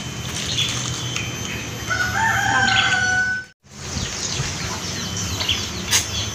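A rooster crowing once, one drawn-out call of about a second and a half beginning about two seconds in, over small birds chirping throughout. The sound cuts out completely for a moment just after the crow.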